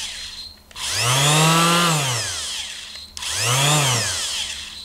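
Small electric corner (detail) sander's motor switched on and off twice: each time it spins up with a rising whine, then winds down in pitch as it coasts to a stop, the second run shorter than the first.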